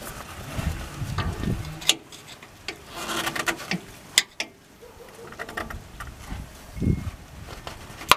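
Scattered clicks, taps and scrapes of hand-tool work under a vehicle, with a few low muffled thumps.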